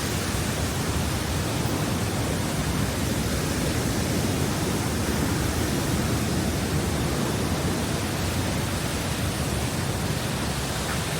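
Nunobiki waterfall: a steady, even rush of falling water.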